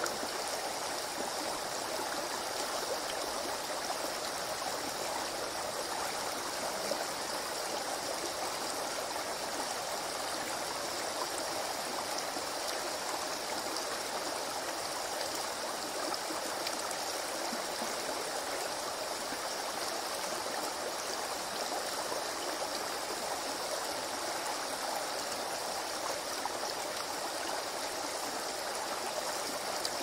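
Shallow stream running over stones and around a boulder: a steady, even rush of water.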